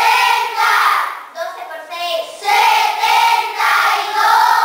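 A class of young children chanting together in sing-song unison, in phrases of about a second with short breaks between them.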